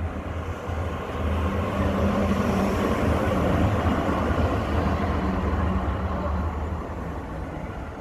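Zurich city tram passing close by: a steady low electric hum under the rumble of its wheels on the rails, growing louder to a peak about halfway through and fading away near the end.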